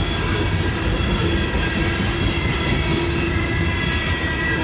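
Freight train boxcars rolling past close by: a steady, loud rumble of steel wheels on rail, with thin high squealing tones from the wheels held over it.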